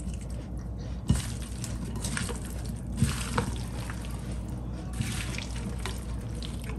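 Wooden spatula stirring and folding a creamy Russian salad of chopped fruit, vegetables and noodles in mayonnaise dressing in a glass bowl: steady wet mixing sounds with a few sharp knocks of the spatula against the bowl.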